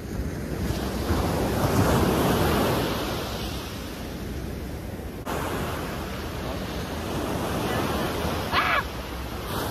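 Ocean surf washing onto the beach, with wind buffeting the microphone; the wash swells about two seconds in and then eases. Near the end there is a brief high-pitched squeal.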